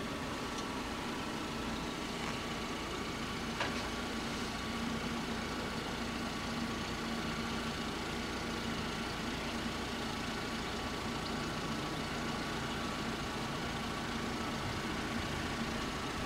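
Steady vehicle hum with a faint, even whine and no bell strokes.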